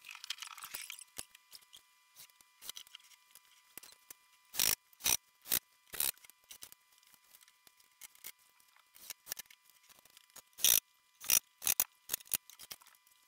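Sharp clicks and knocks of plywood drawer parts and their slide hardware being handled as drawer faces are fitted to a dresser and a drawer is pulled out: about four clicks half a second apart near the middle, and a quicker cluster near the end.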